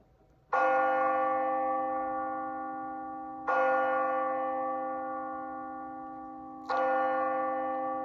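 A church-style bell struck three times, about three seconds apart, each stroke ringing on and slowly fading.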